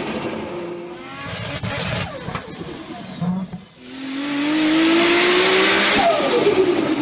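Turbocharged car engine revving and lifting off the throttle, its pitch falling away with the rapid chattering flutter of turbo compressor surge. After a brief lull it revs up again with a loud rushing hiss, then lifts off sharply near the end, the pitch dropping.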